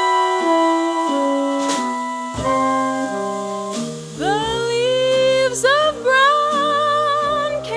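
Jazz orchestra playing an instrumental introduction: held ensemble chords, then about four seconds in a lead line that scoops up into its notes and sustains them with vibrato.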